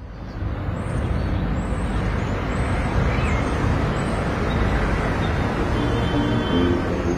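A dense, steady rumbling noise that fades in over the first second and then holds, with faint musical tones entering near the end.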